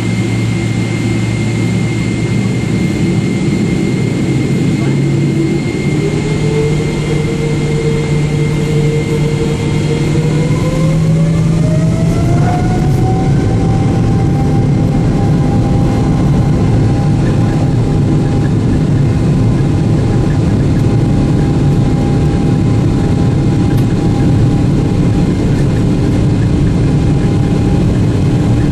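Boeing 777-300ER's GE90 turbofan engines heard from inside the cabin, spooling up to takeoff thrust. A steady low rumble runs under a whine that rises about five seconds in, holds, then climbs again over a few seconds and settles at a higher pitch as the takeoff roll begins.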